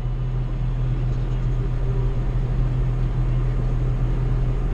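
John Deere 7800 tractor's diesel engine running at a steady speed, a constant low drone.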